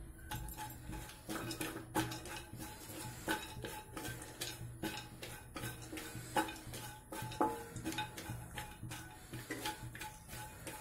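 Wooden spatula scraping and knocking against a kadhai while chopped cashews and almonds are stirred as they fry in ghee, in irregular strokes every half second or so.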